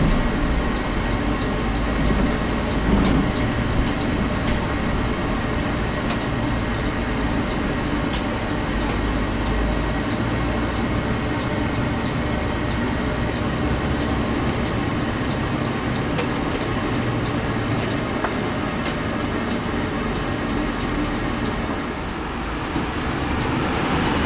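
Cabin noise inside a National Express coach running at low speed: a steady engine and road rumble with faint rattles. A brief rise of hiss comes near the end.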